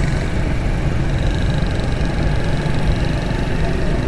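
Motorcycle engine running steadily while the bike is ridden, heard from the rider's seat, with the noise of surrounding street traffic.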